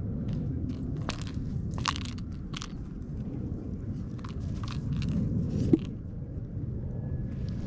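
Scattered crackles and rustles of handling noise over a steady low rumble, as a cat-teaser wand is held and its fur lure dangled and swatted by a cat.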